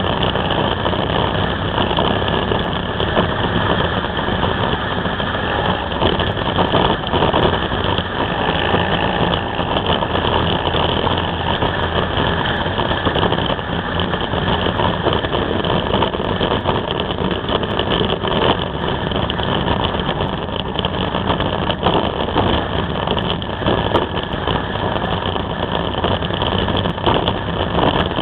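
Can-Am Spyder three-wheeled motorcycle riding at a steady road speed, heard from its own mounted camera: the engine runs under a constant rush of wind and road noise.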